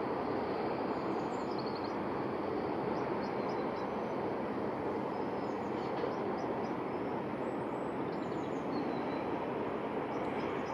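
Steady outdoor background rush, unchanging in level and without rhythm, with faint high bird chirps scattered through it.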